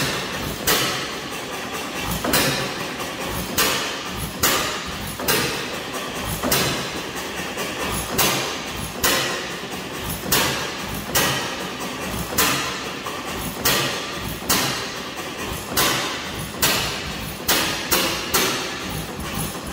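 Antique hit-and-miss engine running, each firing a sharp bang roughly once a second at uneven spacing as it fires and coasts between power strokes.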